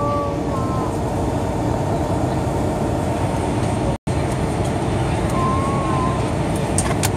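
Jet airliner cabin noise in flight: the engines and rushing air make a steady, even rumble. It cuts out for an instant about four seconds in.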